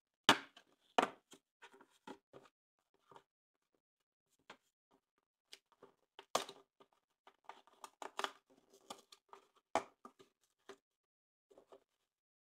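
A Kinder Surprise egg being opened by hand: irregular sharp clicks and crinkling from the foil wrapper and plastic capsule. The loudest clicks come right at the start, about a second in, and again near ten seconds.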